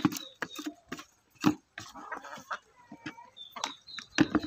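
Chickens feeding at a bowl of wet mash: a rapid, irregular run of sharp pecking taps, with a few short soft clucks among them.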